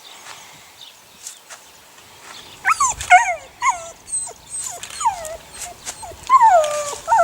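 Eight-week-old puppies whining: a run of short calls, each falling steeply in pitch, starting about two and a half seconds in, with a longer drawn-out falling whine near the end.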